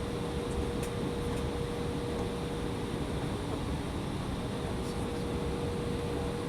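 Steady cabin roar inside an Embraer ERJ-175 airliner in flight, from its jet engines and the airflow past the fuselage, with a steady hum tone running through it. There are a few faint clicks about a second in and again about five seconds in.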